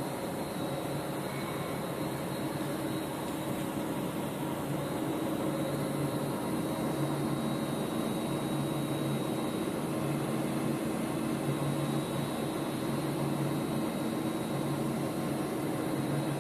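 Steady machine hum with an even hiss from a running CNC vertical lathe in a factory, growing slightly louder about five seconds in.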